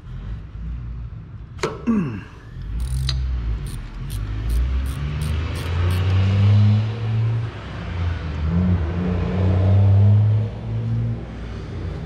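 A ratchet turning the 13 mm nut on the starter's ground cable: a short falling squeak, then a run of evenly spaced clicks. A low, steady engine-like rumble starts a couple of seconds in and swells and eases in steps.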